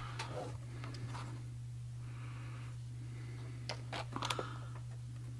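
Faint clicks and taps of a USB cable being plugged in and a phone being handled, a few near the start and a small cluster about four seconds in, over a steady low hum.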